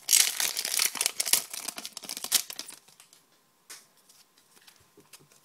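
Trading card pack wrapper torn open and crinkled, a dense crackle lasting about two and a half seconds, followed by quieter handling of the cards with a single click.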